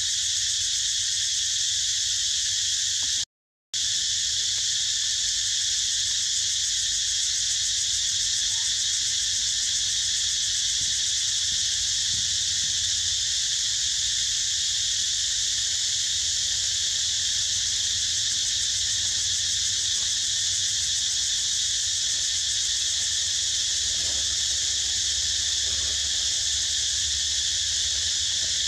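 Steady, high-pitched chorus of forest insects droning without a break, cut off by a brief total drop-out about three seconds in.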